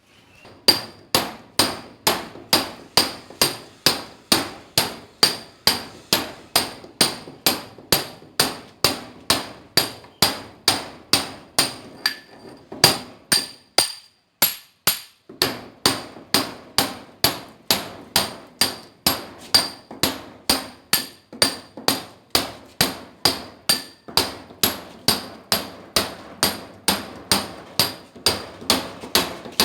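Club hammer striking a steel chisel in a steady rhythm, about two and a half blows a second, each with a bright metallic ring, chipping at masonry on a building site. The blows pause briefly a little before halfway, then carry on.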